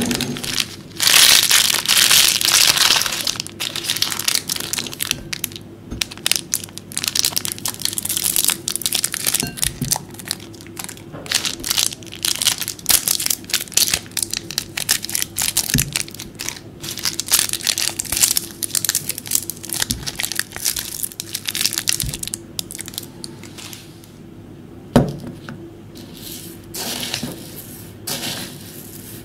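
Plastic wrappers of Juzt Jelly sweets crinkling and tearing as they are unwrapped by hand, one sweet after another. A few single knocks, the loudest near the end, as the jellies drop into the glass bowl.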